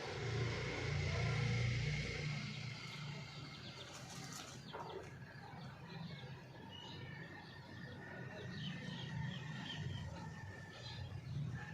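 Birds making short, soft, high-pitched chirps over a faint outdoor background. A low rumble runs under the first two seconds, and a single sharp click comes about four seconds in.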